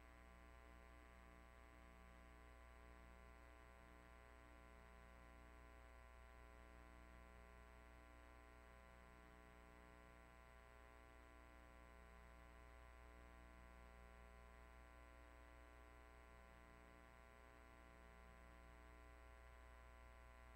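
Near silence with a faint, steady electrical hum and buzz and a thin high whine.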